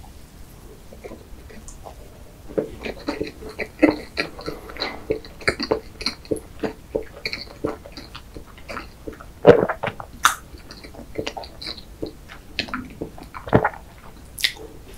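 Close-miked chewing of a mouthful of chocolate-glazed layer cake with sponge and cream: soft, wet mouth clicks that thicken about two and a half seconds in. A couple of louder clicks come near the middle and near the end.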